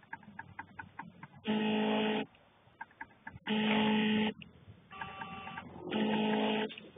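An electronic buzzer tone sounds three times, each a flat, steady blare of under a second, about two seconds apart, with a weaker, higher-pitched tone just before the third.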